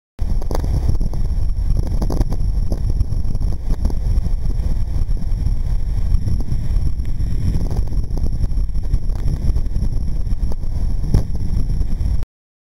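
Vehicle driving on a wet road, heard as a heavy low rumble of wind buffeting the microphone mixed with road and engine noise. It starts suddenly and cuts off abruptly near the end.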